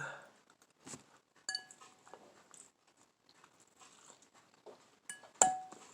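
Eating noises: a utensil clinks against a bowl, once lightly about a second and a half in and once more sharply near the end, with small quiet mouth and eating sounds between.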